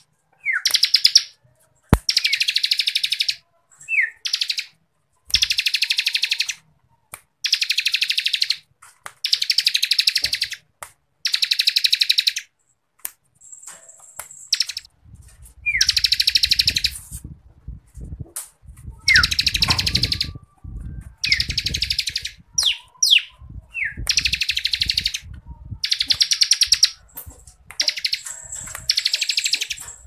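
Bar-winged prinia (ciblek kristal) singing its rapid, dense buzzing trill, the 'ngebren' style, in phrases about a second long repeated every second or two, with short sharp falling notes between them.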